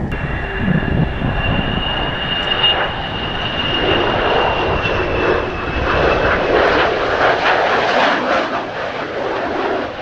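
F-4EJ Kai Phantom II's twin J79 turbojets on landing approach: a steady high whine that dips slightly about six seconds in, under rushing jet noise that grows louder from about four seconds in as the jet comes close. Gusting wind buffets the microphone near the start.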